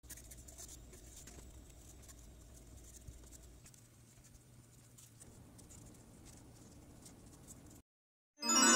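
Faint pencil scratching and tapping on paper, a quick run of small strokes over a low hum. It cuts to silence near the end, and music starts just before the end.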